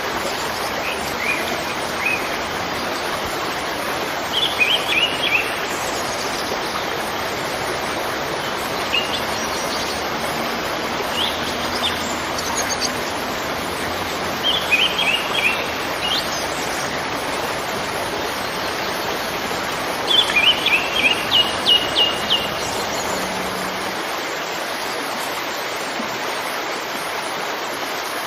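Steady rush of a waterfall, with a bird calling over it in quick runs of high chirps several times; the longest run of chirps comes about two-thirds of the way through.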